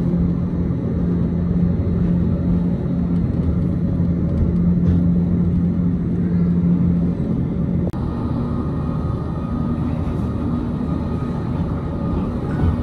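Gornergrat electric rack-railway train running, heard from inside the carriage: a steady low rumble with a constant motor hum. About eight seconds in there is a click and the hum gives way to a higher, thinner whine.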